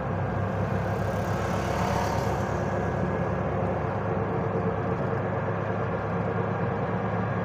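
TVS King auto-rickshaw cruising at a steady speed on smooth asphalt: an even engine hum with road and wind noise, heard from on board.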